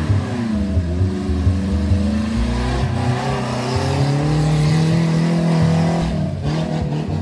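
Modified off-road 4x4's engine revving hard as it drives through deep mud, its pitch falling and rising. It is held high for a couple of seconds, then drops off about six seconds in.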